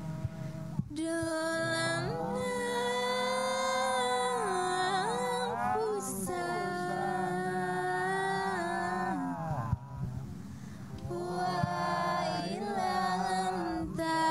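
Unaccompanied voice singing a slow traditional sintren song in long held notes that bend and glide, with a short break about ten seconds in.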